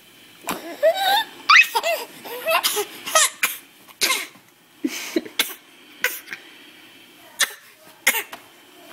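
A string of short, forced fake coughs, mixed with high, squeaky rising vocal sounds.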